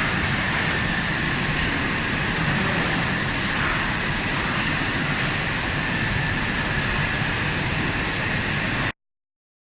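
BIESSE Rover 24 CNC machining centre running: a steady mechanical noise with a high whine held through it, cutting off suddenly near the end.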